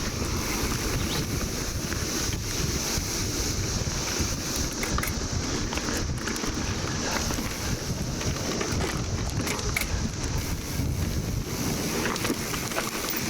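Wind buffeting the microphone and a rumble from the mountain bike running down a dirt trail. Behind it, periodical 17-year cicadas keep up a steady, high, unbroken chorus.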